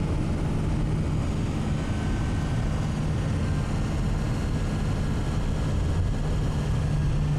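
Van engine and road noise heard from inside the cabin while driving: a steady drone with a constant low hum.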